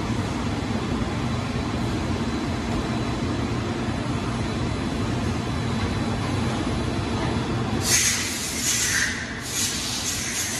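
BLOHM Precimat CNC creep-feed grinder running with a steady low machine hum. About eight seconds in, a loud hiss cuts in suddenly, stopping and restarting once or twice.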